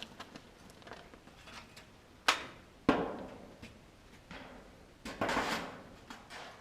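Two sharp knocks about half a second apart, then a rough scraping noise lasting under a second, from hands-on work with wooden siding boards.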